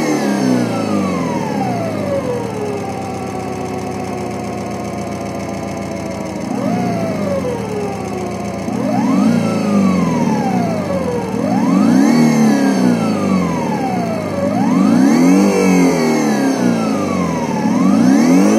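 Homemade optical engine-sound synthesizer imitating a Subaru EJ20 flat-four with equal-length exhaust (STI sound); its tone comes from a spinning slotted cardboard disc read by light sensors and is sounded through a can. Revs fall from high to idle over the first few seconds and idle steadily. After a short blip about six seconds in, it is revved up and let fall three times, and it rises again at the end.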